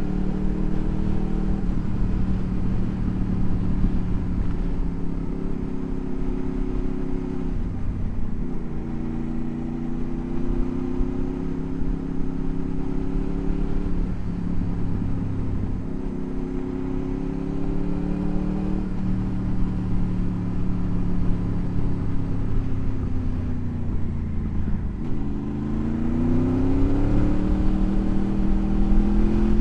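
Motorcycle engine under way, its revs repeatedly dropping at gear changes and climbing again. It pulls up hard from low revs near the end.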